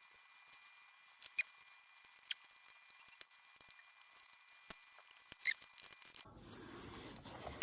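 Faint, sparse small clicks and ticks of a small screwdriver and tiny screws as the screws of a laptop's bottom cover are put back in, a few separate clicks spread about a second apart.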